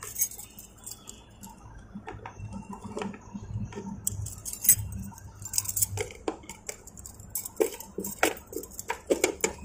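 A key ring jingling, with a string of light metallic clicks and taps as the motorcycle's keys are handled. The clicks come more thickly in the second half.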